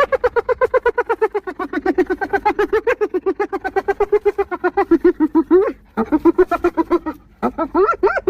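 Spotted hyena giggling: rapid runs of high-pitched pulsed calls, about nine a second, in one long bout with short pauses near six and seven seconds in.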